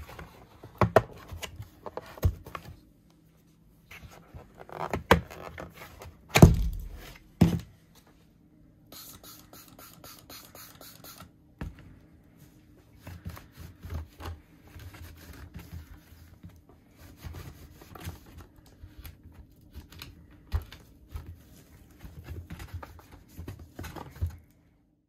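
Plastic door frame and sheet-metal cover of a top-loading washing machine lid being handled and unclipped by hand: a string of clicks, knocks and scrapes, the loudest knocks about five to seven seconds in.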